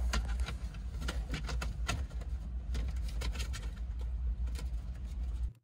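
Irregular light clicks and taps of plastic parts being handled as an AEM gauge and its mounting bracket are pressed into a plastic dash gauge pod, over a steady low hum. The sound cuts off abruptly about five and a half seconds in.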